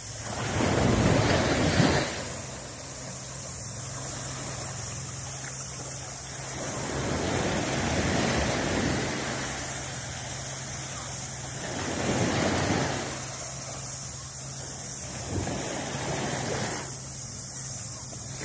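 Small surf waves washing up the beach, the wash swelling and fading away four times.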